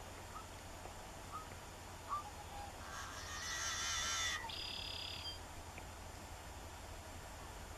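Wetland birds calling: a few short chirps in the first two seconds, then a louder buzzy call lasting about a second and a half from about three seconds in, followed at once by a briefer, higher steady note.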